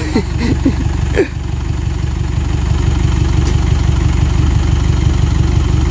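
Truck engine idling with a steady low throb. A single sharp knock about a second in.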